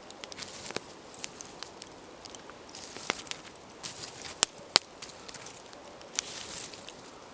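Campfire burnt down to embers, crackling with scattered, irregular sharp pops and ticks over a faint hiss.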